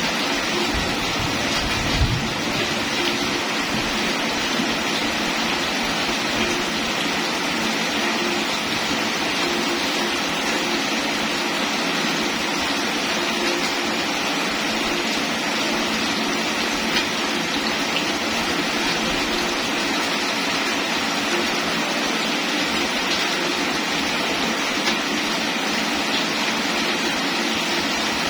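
Steady rain falling, an even hiss, with a few louder drops ticking now and then and a single small knock about two seconds in.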